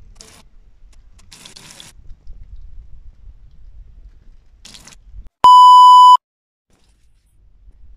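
Oil sizzling in short bursts as sandwiches fry in a pan, then a loud, steady test-tone beep lasting just under a second, the tone that goes with a colour-bars test card, cutting off to brief dead silence.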